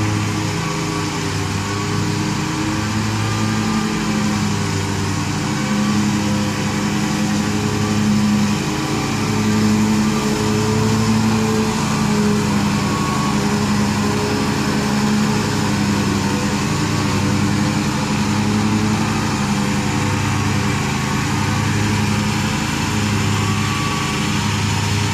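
Altoz zero-turn riding mower's engine running steadily under load with the blades cutting tall grass, its hum swelling and easing slightly.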